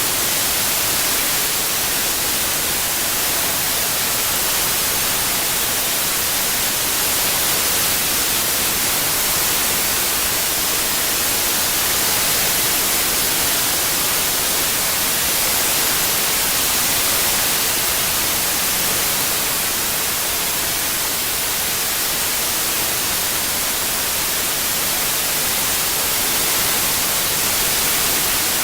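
Steady white noise: an even, unbroken hiss, brightest in the treble, with no tones, clicks or pauses.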